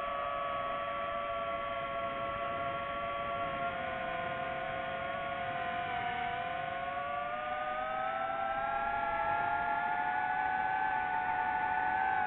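DJI FPV drone's motors and propellers whining, several tones moving together in pitch; the whine dips about halfway through, then climbs steadily and gets a little louder toward the end as the throttle is raised.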